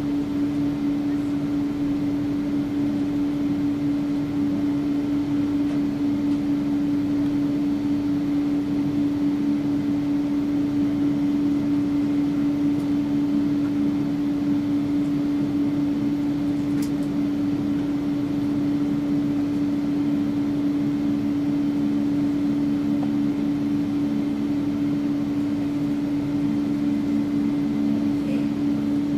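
Steady cabin hum inside an airliner with its engines running: one strong low steady tone over an even rush of air, holding level with no rise in engine power.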